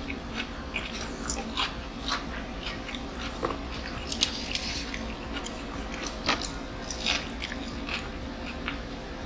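Close-miked eating of fried chicken: irregular crunching, biting and chewing sounds, over a steady low hum.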